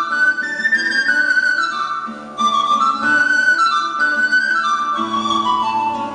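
Pan flute playing a stepwise melody over classical guitar accompaniment, with a brief break between phrases about two seconds in.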